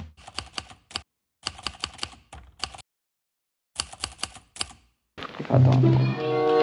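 Three short runs of quick, light clicks, like typing, with silent gaps between them; music with steady low bass notes starts near the end.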